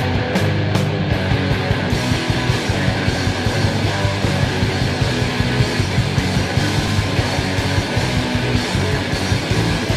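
Loud distorted heavy rock: electric guitars, bass and drums playing steadily. About two seconds in, the high end thickens into a dense wash.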